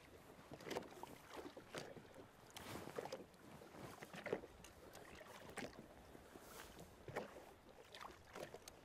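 Faint water splashing and lapping against a fishing boat's hull, with a scattered handful of small knocks and taps at irregular intervals.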